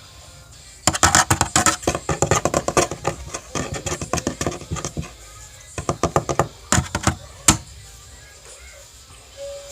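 Hairbrush dragged through hair close to the microphone: a long run of rapid crackling bristle strokes for about four seconds, then a few shorter strokes and a sharp click.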